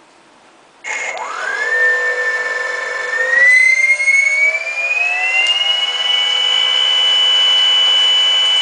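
Electric thruster motors of a homemade ROV running in air, starting with a whine a little under a second in. The pitch climbs as they spin up, rises again in a second step, then holds steady at the higher speed.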